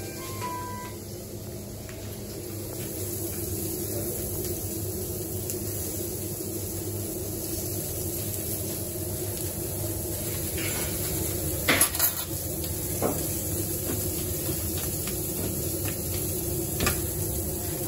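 Steady kitchen noise around a charcoal grill with sausages and meatballs cooking. A few sharp metal clinks of grill utensils break through it: the loudest about twelve seconds in, another just after, and one more near the end.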